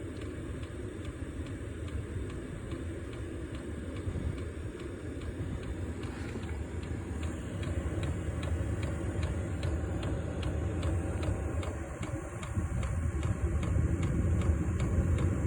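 8 kW diesel heater running during startup: a low rumble from the fan and burner that grows louder as the fan ramps up. From about six seconds in, the fuel dosing pump ticks evenly, a few clicks a second.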